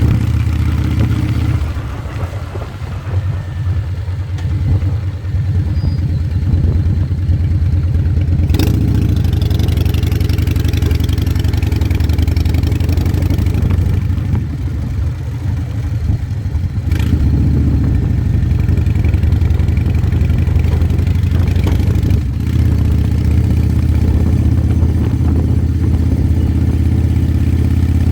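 A vehicle's engine running while under way, easing off twice and building back up, with a couple of brief sharp clicks.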